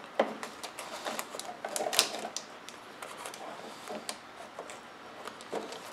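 Scattered light clicks and taps of hard plastic and fiberglass parts being handled and fitted at the tail of a scale RC jet model, with one sharper click about two seconds in.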